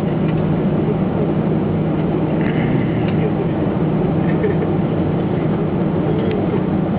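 Steady cabin noise inside an Airbus A320 taxiing after landing: engine and air-conditioning hum with a constant low drone, and faint passenger voices in the background.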